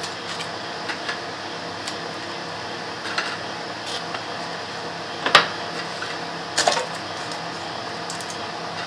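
Soft handling sounds as rectangular biscuits are laid one by one into a loaf tin lined with crinkly butter paper: a few scattered light clicks and paper rustles, the sharpest click a little past halfway, over a steady background hiss.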